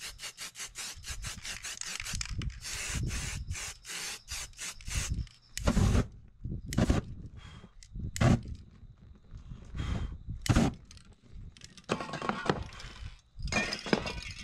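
Spray-paint art work: fast back-and-forth rubbing strokes, about three or four a second, for the first few seconds; then several separate knocks of spray cans against the board; then short bursts of hiss near the end.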